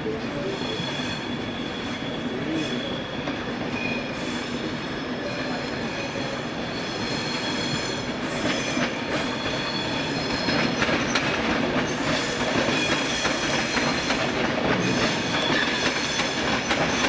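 A train rolling past with its wheels squealing faintly on the rails and clicking over the rail joints, growing a little louder about halfway through.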